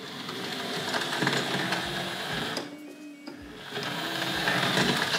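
Electric motor and wheels of a Hornby Dublo model tank locomotive running along three-rail track. It stops briefly about halfway through, then runs back the other way.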